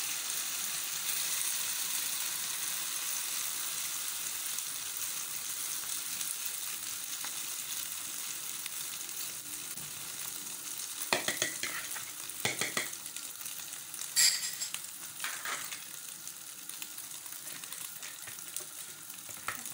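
Egg and cleavers omelette mixture sizzling in hot olive oil in a non-stick frying pan, the sizzle slowly dying down. A few clicks and scrapes of a fork against the pan about halfway through.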